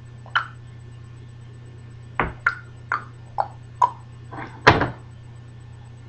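A string of about eight short, sharp clicks and knocks, irregularly spaced, some with a slight pitch to them, over a steady low hum. The loudest, a fuller knock, comes about three quarters of the way through.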